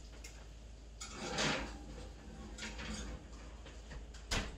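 A cast iron pan and oven rack sliding into a home oven with a metal scrape about a second in, then the oven door shutting with a sharp thump near the end.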